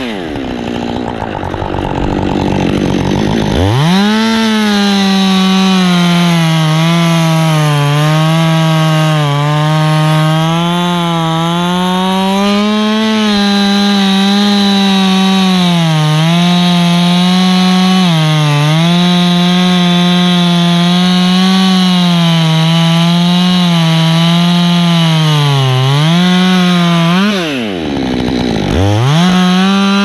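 Two-stroke chainsaw cutting into a pine trunk. The engine drops to idle at the start and revs back up about four seconds in. It then runs under load with its pitch wavering as the chain bites, drops off briefly near the end, and revs up again.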